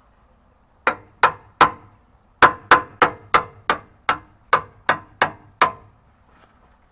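Hammer blows on metal, each with a short ring: three strikes, a pause, then a faster run of ten.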